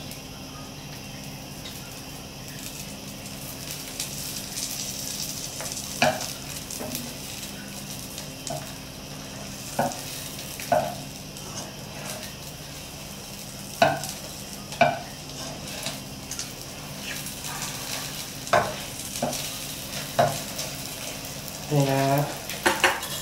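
Thin egg omelette sizzling steadily in a nonstick pan while a wooden spatula folds and rolls it, with scattered short knocks and scrapes of the spatula against the pan.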